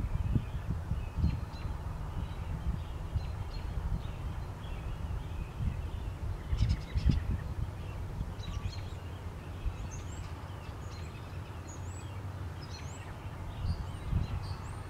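Outdoor ambience through a low-quality camera microphone: a low rumble, with birds chirping in the background in short high notes that come more often in the second half.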